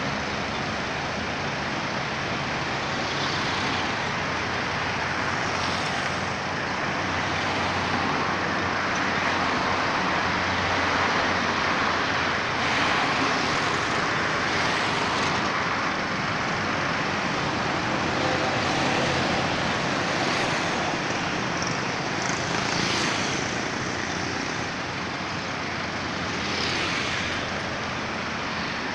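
Steady road traffic noise: a continuous wash of vehicles passing on a busy road, swelling now and then as louder ones go by.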